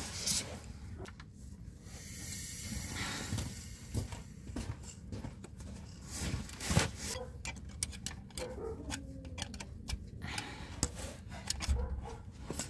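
Scattered light metallic clicks and scrapes of a flat screwdriver and gloved hands working at a connecting-rod cap and bearing on the underside of an engine.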